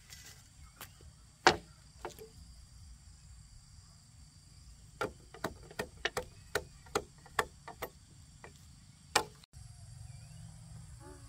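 A series of sharp knocks: a loud one about one and a half seconds in, a quick run of about a dozen, roughly three a second, a few seconds later, and another loud one near the end, over a low steady rumble.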